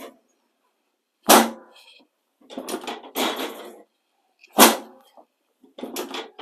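Chiropractic drop table's drop section clacking down twice, about three seconds apart, each a sharp loud knock as the adjusting thrust trips it to correct a short leg. Softer rustling and clunking between the knocks as the section is handled and reset.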